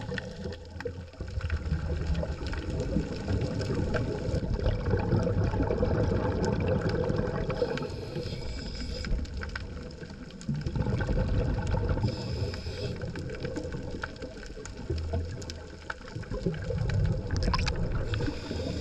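Underwater sound from a scuba diver's camera: a muffled rushing of water with scuba exhalation bubbles gurgling, swelling and fading every few seconds.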